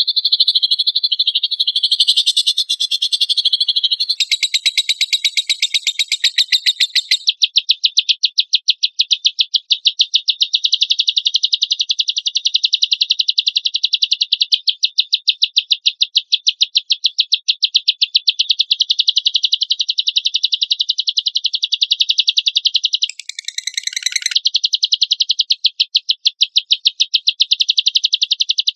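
Lovebird singing a long, rapid, rasping trill of evenly repeated pulses, the harsh 'tembakan' chatter of a singing lovebird. The pattern shifts a couple of times early on, and a brief, different burst breaks it about 23 seconds in.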